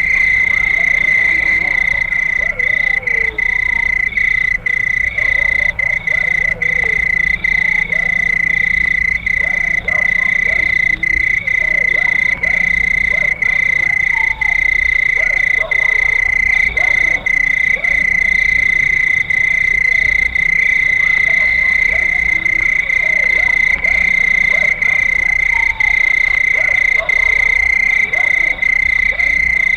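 Crickets trilling in one loud, continuous high-pitched drone, with many short, lower chirping calls scattered throughout.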